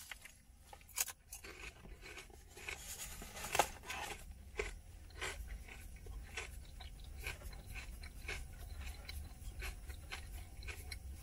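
Close-up biting and chewing of a crispy egg roll: a run of sharp crunches, loudest about three and a half seconds in, then softer, more scattered chewing crunches over a low steady hum, heard inside a car.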